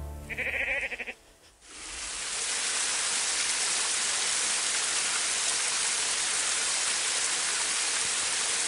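A goat bleats once, briefly and wavering, near the start. After a short lull, the steady, even rush of a waterfall sets in.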